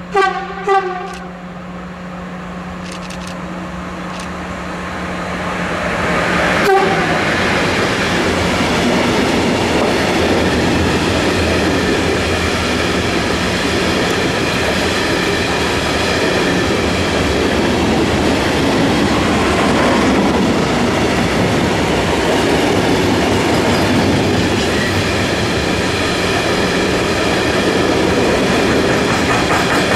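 Two short horn blasts from a Siemens Vectron electric locomotive, then a long freight train of hopper wagons rolling past close by. The wheels rumble and clack steadily over the rail joints, with a steady high-pitched ringing from the wheels on the rails.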